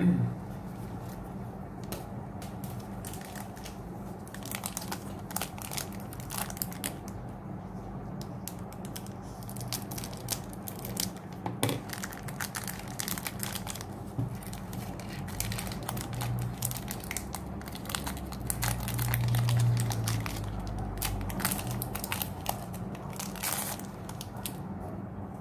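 Foil Pokémon booster pack wrapper crinkling and tearing as it is handled and opened, with many irregular crackles throughout.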